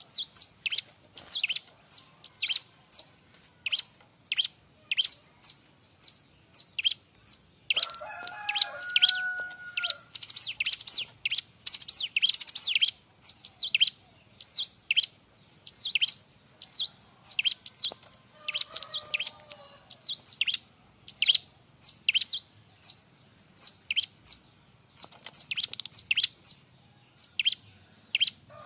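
Bar-winged prinia (ciblek) singing in a lively, noisy way: a long run of sharp, high, downward-sweeping chirps, about one or two a second. The chirps break into rapid chattering runs about eight seconds in and again near the end. A few lower, steadier notes sound beneath the chirps, most clearly about eight seconds in.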